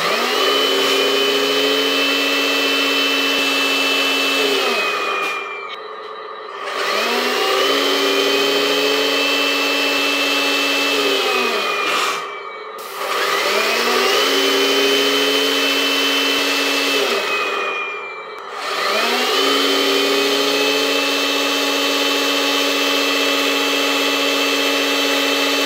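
Electric drive motor and gear train of a 1/14-scale RC 6x6 tractor truck whining as its wheels spin off the ground. It revs up, holds a steady pitch for several seconds, then winds down, three times over, and on the fourth run it keeps going.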